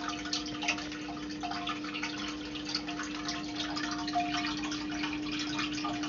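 Water dripping and trickling over a steady low hum, with many small quick drips and clicks.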